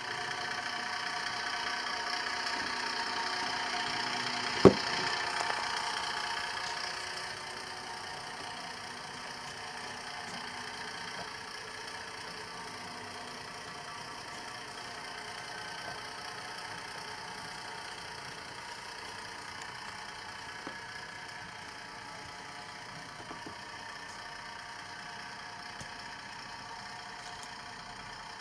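Model railcar sound decoder playing a Leyland diesel engine sound through the model's small speaker, running steadily. It is louder for the first several seconds and then settles lower. A single sharp click comes about five seconds in.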